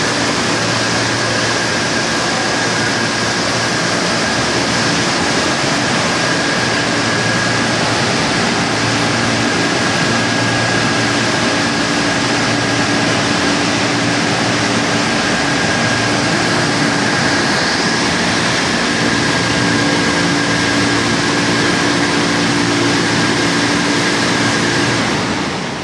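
Nine-brush tunnel car wash machine running: a steady, dense rushing noise over a low motor hum, with a constant high-pitched whine. The noise eases off near the end.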